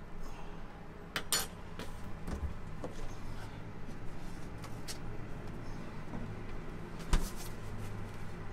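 Kitchen handling noises: clicks and knocks of an under-counter door and crockery being handled, with the loudest knock about seven seconds in, over a steady low hum.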